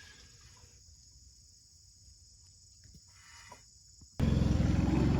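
Near quiet with a few faint clicks. About four seconds in it cuts suddenly to a loud, steady low mechanical hum.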